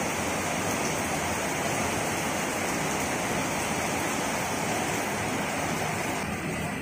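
Heavy rain falling in a steady downpour, a dense, even hiss of water on the terrace and the leaves of potted plants. The hiss turns slightly duller near the end.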